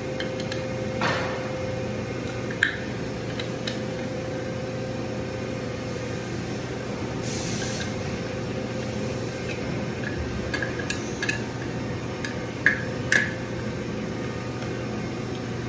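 Steady hum of shop machinery with a few sharp metal clinks and knocks from parts and tools being handled on a mill fixture. There is a brief hiss about seven seconds in.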